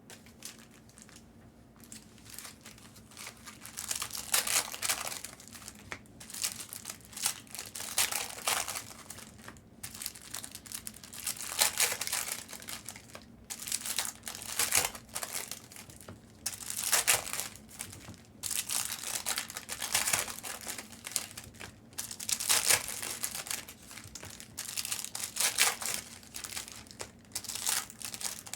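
Foil trading-card pack wrappers being torn open and crinkled, in repeated bursts every second or two.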